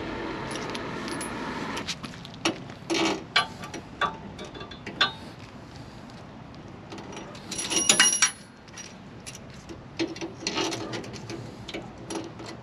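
Metal parts and hand tools clinking and knocking as sway bar link hardware is handled and fitted, in scattered sharp clicks, with a louder ringing metallic clatter about eight seconds in.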